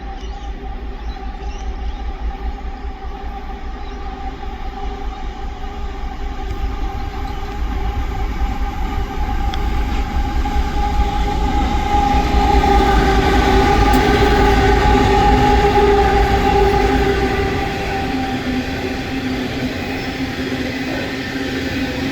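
Coal train hauled by One Rail XRN-class diesel locomotives passing close by: a heavy rumble with steady whining tones over it. It builds to its loudest about twelve seconds in and eases off after about seventeen seconds.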